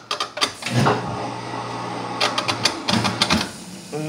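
Dishwasher being started: sharp clicks of its controls, then a steady low electric hum for about a second and a half, followed by more clicking and a brief second hum.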